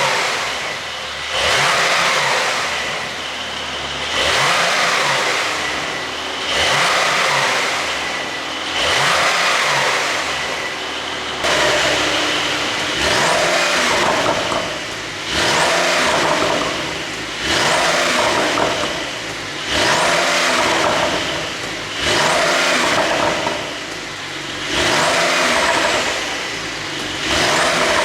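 Porsche 911 (992) Carrera twin-turbo flat-six revved over and over, a quick blip about every two seconds that then falls back. Popping and crackling from the exhaust come on each fall in revs, from a pop-and-crackle ECU tune.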